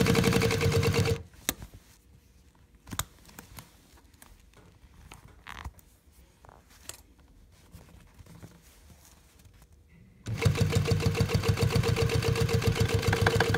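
Sewing machine stitching a purse side seam in two runs, each a fast, even stitching rhythm with a steady hum. The first run stops about a second in, and the second starts near the end. In between there are a few clicks and light handling of the fabric.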